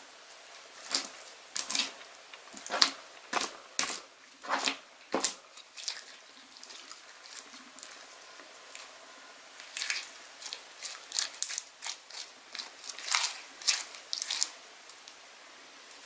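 Slime being squeezed and kneaded, giving two runs of short, sharp wet pops and clicks with a quieter few seconds between them.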